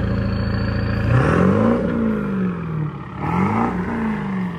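7.3 L Powerstroke V8 turbo-diesel with a KC38R turbocharger pulling hard. The engine note climbs and eases off twice, and a faint high turbo whistle rises over it in the first second.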